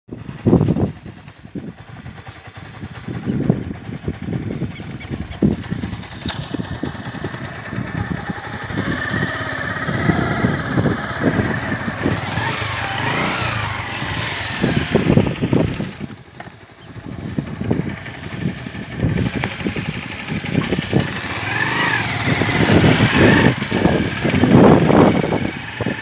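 Motorcycle engine running while the bike is ridden, its note rising and falling at times, with wind buffeting the microphone.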